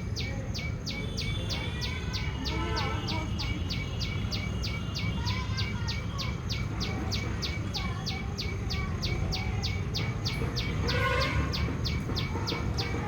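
A bird chirping in a rapid, even series of short high notes, about four a second, over a steady low background rumble, with a few fainter bird calls mixed in.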